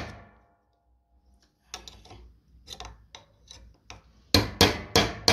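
Quick hammer blows, about three a second: softer scattered knocks and taps through the middle, then four sharp strikes near the end.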